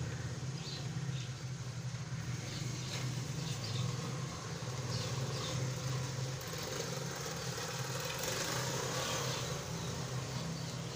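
A steady low hum, like a running motor, with a few faint short ticks.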